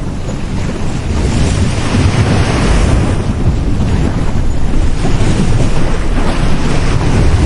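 Sea waves breaking on a beach: a continuous rush of surf that swells as a wave breaks about two seconds in and again near the end, over a heavy low rumble of wind on the microphone.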